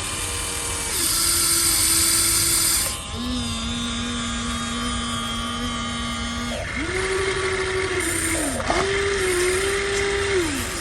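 Small electric motors of radio-controlled construction models whining in a series of separate runs. Each run lasts one to three seconds, slides up in pitch as it starts and down as it stops, and sits at a slightly different pitch from the others. A louder, higher whine comes about a second in.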